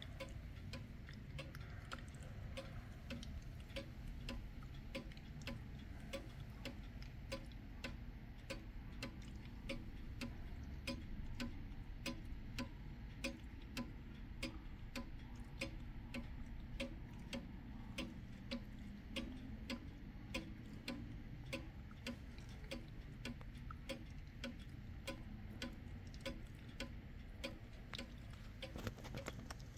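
Kienzle pendulum wall clock ticking with a steady, even beat.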